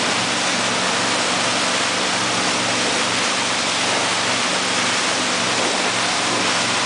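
Steady rush of a speedboat's churning wake and moving air, over the low, even hum of the boat's engine under way.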